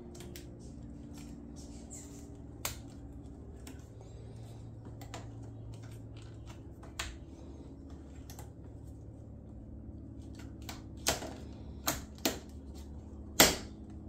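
Scattered sharp plastic clicks and taps from handling an electronic door lock's plastic housing and its wiring, a few at first and a quick cluster near the end, the last one the loudest. A faint steady low hum runs underneath.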